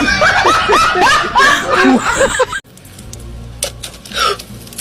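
People laughing in quick repeated bursts, cut off abruptly a little over halfway through. A quieter stretch with a few faint clicks follows.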